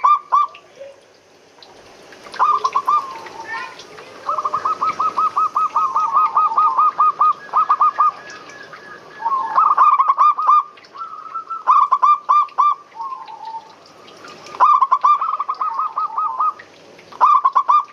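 Zebra doves cooing: several bouts of fast staccato notes, each a rapid run of quick coos, with short pauses between bouts.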